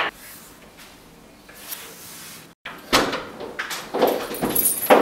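A door being pushed and banged: one sharp knock, a quiet stretch, then from about three seconds in a run of irregular knocks and rattles that grows louder.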